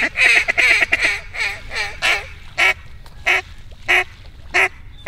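Duck quacking: a quick run of about eight quacks, then single quacks spaced about two-thirds of a second apart.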